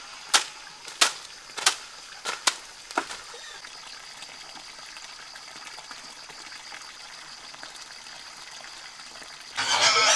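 Five sharp splashes about two-thirds of a second apart as cut grass and leaves are thrown onto pond water, followed by a steady outdoor background. Near the end a much louder noisy sound cuts in.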